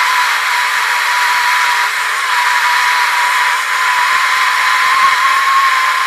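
Small handheld pencil torch burning steadily with a loud hiss and a thin steady whistle. Its flame is being passed over the wet surface of a freshly turned red oak bowl to drive off surface water.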